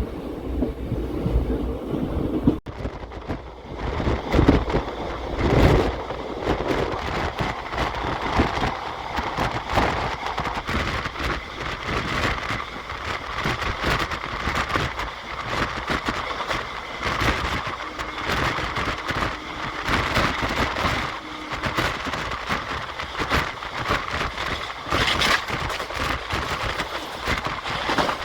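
Rushing wind noise from a moving passenger train, buffeting the microphone with rough crackling over the train's running noise. The sound changes abruptly about two and a half seconds in.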